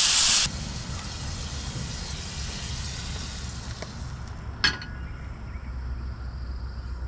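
Butter sizzling loudly in a hot skillet, cut off abruptly about half a second in; after that a much fainter sizzle fades out over a low rumble. About four and a half seconds in there is a single sharp metallic clink.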